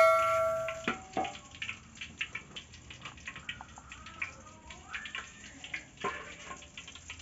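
A bell-like chime, the sound of the YouTube subscribe animation, dies away over the first second. After it come faint scattered clicks and light kitchen clatter.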